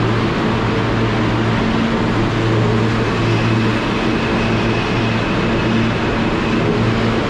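Steady noise inside an R160A subway car, with a low steady hum and a faint high whine running under it.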